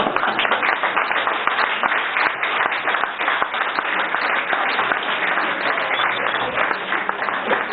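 Audience applause, many hands clapping at once in a dense, even patter.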